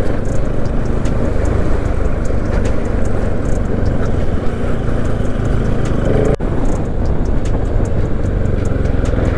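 Motorcycle engine running steadily while riding, with heavy wind rush on the microphone. There is a brief break in the sound about six seconds in.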